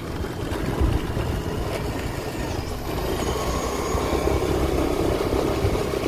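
Motor scooter engine running steadily while riding uphill, with wind rumbling on the microphone.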